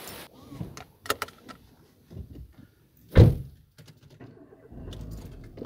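A car door shuts with one heavy thunk about three seconds in, after a few light clicks. A low steady rumble sets in near the end.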